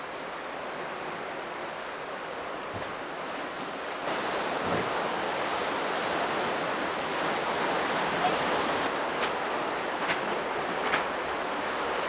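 Sea waves washing over a rocky shore: a steady surf noise that grows louder about four seconds in.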